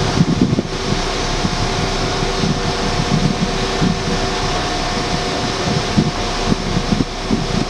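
Wind rumbling and buffeting the microphone in uneven gusts, over a steady hum with two held tones.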